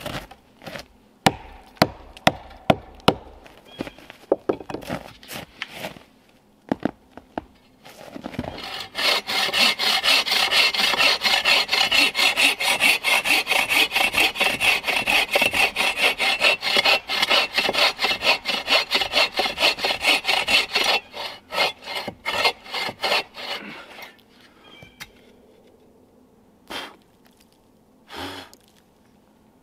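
Hand saw cutting wood in rapid, steady back-and-forth strokes for about fifteen seconds, starting about eight seconds in. Before it come a series of sharp knocks, and a few single knocks follow it.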